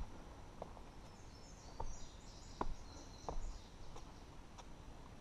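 A hiker's footsteps on rock, short sharp scuffs and steps every half second or so. A bird sings a quick run of high chirpy notes about a second in, lasting a couple of seconds.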